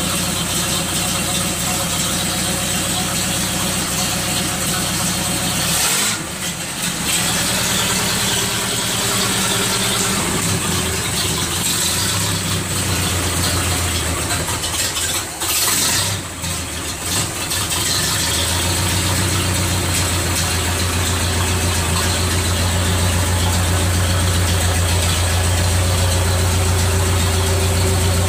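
A 1930 Ford Model A four-cylinder flathead engine, mounted on a bare chassis, idling just after a cold start. Its running dips briefly twice in the first half, then settles into a steadier idle with a stronger low note.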